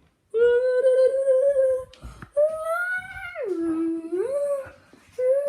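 A child's voice humming a pretend teleport sound effect in three long held notes. The middle note swoops down in pitch and climbs back up.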